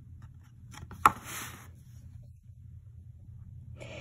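A cardboard board-book page being turned by hand: a sharp snap about a second in, then a brief sliding rustle as the page is laid over.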